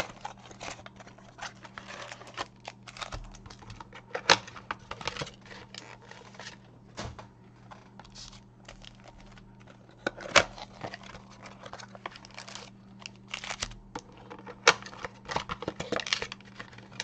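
Baseball card packaging being torn open and crinkled by hand, with scattered clicks and rustles of the cards and wrappers being handled. A faint steady hum runs underneath.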